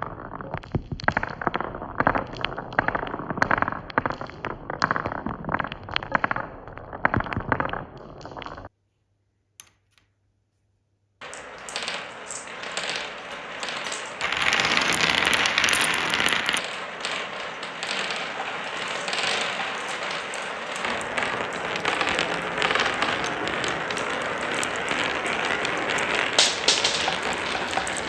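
Many glass marbles clattering and clicking as they roll down a marble run track. The sound cuts off about nine seconds in, leaving near silence with one click. About two seconds later it comes back as a denser, steadier rush of many marbles rolling, with clicks throughout.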